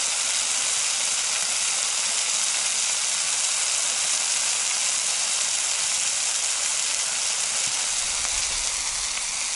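Potatoes, onions and wild honey mushrooms frying in a saj pan, sizzling steadily.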